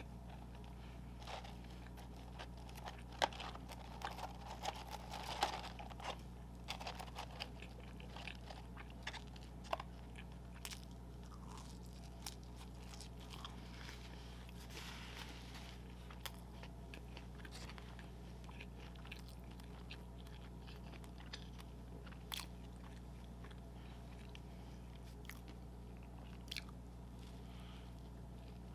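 A person eating close to the microphone: bites, wet chewing and smacking mouth sounds, busiest in the first ten seconds and then coming more sparsely. A steady low hum lies underneath.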